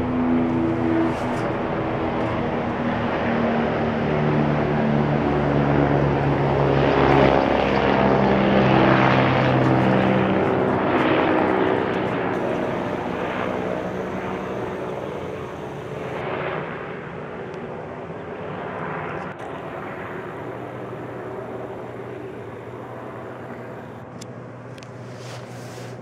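Helicopter making a low pass overhead: its engine and rotor noise swells to a peak about seven to ten seconds in, then fades steadily as it moves away.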